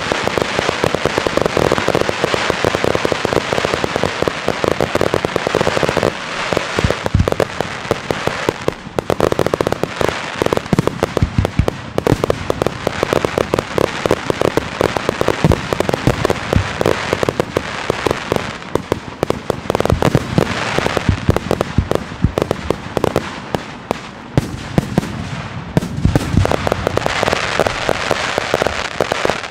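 Fireworks display: a near-continuous barrage of bangs and crackle from bursting shells.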